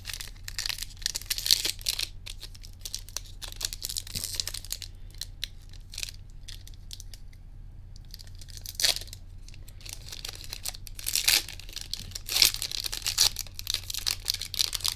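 Foil wrappers of Pokémon trading card booster packs crinkling and tearing as the packs are handled and ripped open, in bursts of crackle with a quieter stretch of a few seconds in the middle.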